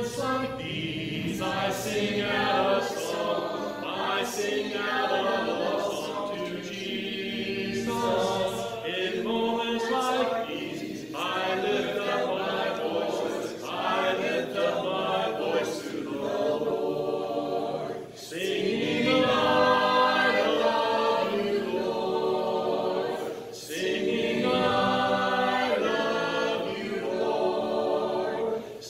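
A hymn sung a cappella by a group of voices, without instruments, in sung phrases with short pauses between them.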